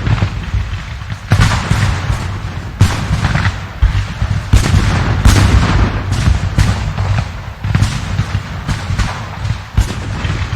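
Battle sound effect: a barrage of gunfire-like blasts and booms over a continuous deep rumble, with sharp strikes landing every second or so.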